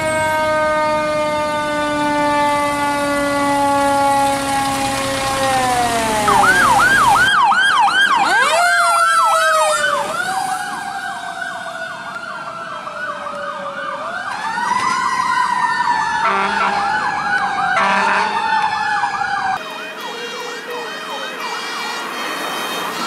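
Fire truck sirens. First a single siren wail falls slowly in pitch. Then come rapid yelping sweeps, about three a second, laid over a slower wail that rises and falls, and near the end another siren rises.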